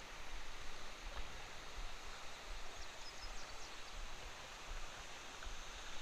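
Shallow creek water running over a gravel riffle: a soft, steady rushing hiss.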